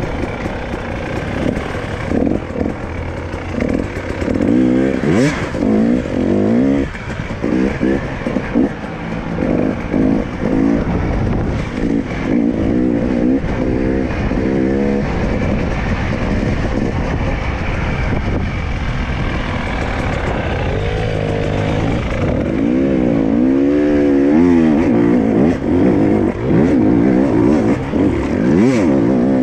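Enduro dirt bike engine running under load over rough ground, revving up and down again and again as the throttle is worked.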